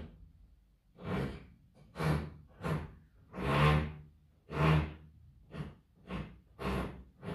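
Building-works noise coming through the flat from the premises below: a power tool running in short, irregular bursts, about ten in seven seconds.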